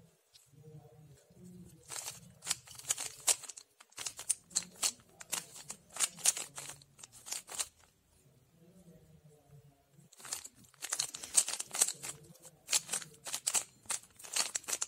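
Plastic 3x3 puzzle cube being turned by hand: runs of quick clacking face turns. The turning comes in three bursts, with a pause of about two seconds in the middle before a longer run near the end.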